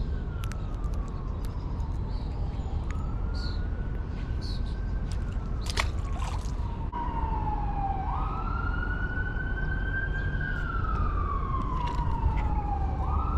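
Emergency vehicle siren wailing, its pitch slowly rising and falling about every five seconds, getting louder about halfway through, over a steady low background rumble.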